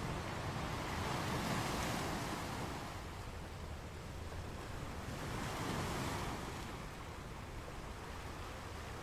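Ocean waves surging in and washing back, two swells about four seconds apart, over a steady low rumble.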